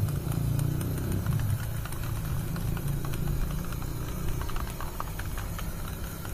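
A low engine rumble that fades after the first second or two, over the steady hiss of an aerosol spray can spraying paint onto a car wheel.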